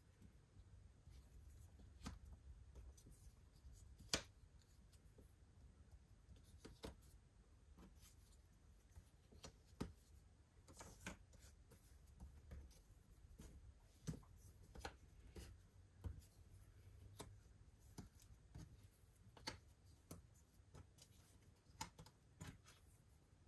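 Cardboard jigsaw puzzle pieces being handled and set on a table: faint, scattered clicks and taps at irregular intervals, with near silence and a low room hum between them. The sharpest tap comes about four seconds in.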